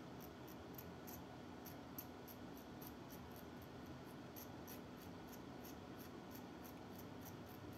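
Hobby knife blade gently scraping the edge of a plastic model part: short, light scratching strokes, about three or four a second, over a faint steady hum.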